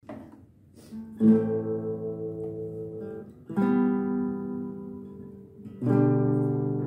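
Acoustic guitar playing three strummed chords, about two seconds apart, each left to ring and fade.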